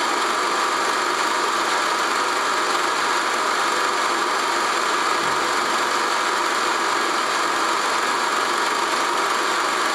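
Film projector running with a steady mechanical whir.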